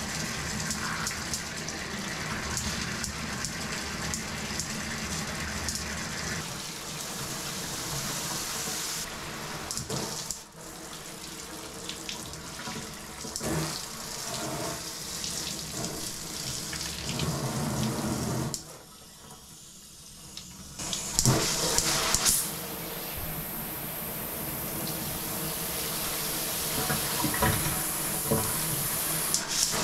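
Water spraying from a handheld high-pressure shower head into a bathtub, its spray changing several times as the head is switched through its settings. The flow almost stops for about two seconds about two-thirds of the way through, then returns as a hissier spray.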